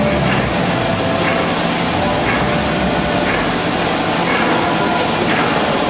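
Offset printing press running: a steady loud mechanical hiss and hum, with a faint regular beat about once a second.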